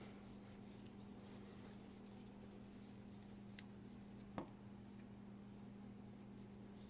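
Faint soft rubbing of a cloth rag wiping down a folding knife, over a steady low hum, with a single sharp click about four and a half seconds in.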